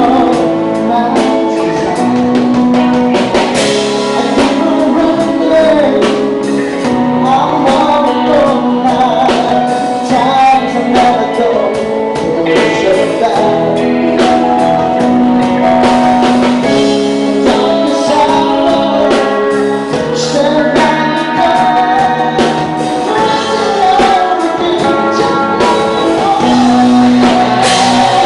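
Live rock band playing loudly, with singing over electric guitar and a drum kit.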